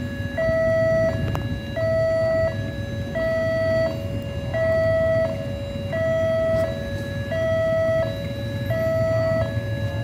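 Railway level-crossing warning alarm sounding with the barriers down for an approaching train. It is an electronic two-tone signal that alternates between a higher and a slightly lower tone, about one cycle a second.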